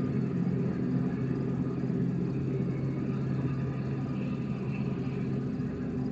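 Large diesel engine running steadily at a constant pitch, a low hum.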